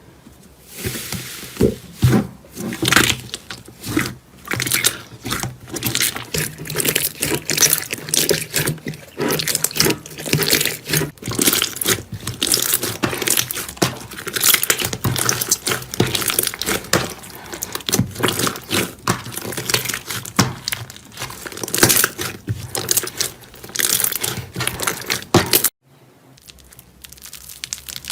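Hands squeezing and poking slime: a dense run of sticky clicks, pops and crinkling crackles. These stop abruptly near the end, and a quieter stretch of similar slime sounds follows.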